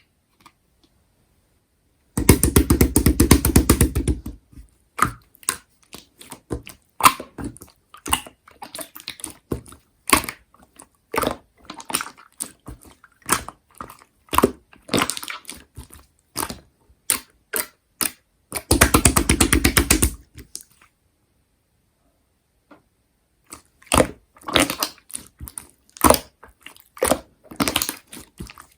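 Slime being squeezed, poked and stretched by hand, giving irregular sticky clicks and pops, with two spells of dense continuous crackling, one a couple of seconds in and one about two-thirds of the way through.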